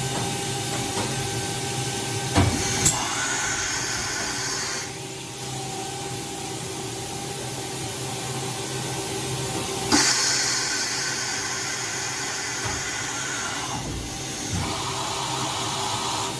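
An OKK HM-6300S CNC horizontal machining center running through a program: a steady machine hum with a few whining tones, sharp clacks about two and a half and three seconds in, and a louder clack about ten seconds in. Hissing comes on with the clacks, for about two seconds after the first pair and about four seconds after the last.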